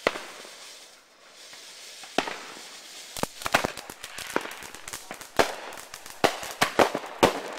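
Fireworks going off: a sharp bang at the start and another about two seconds in, then a quick, irregular run of bangs and pops from about three seconds on, with a steady hiss of burning sparks between them.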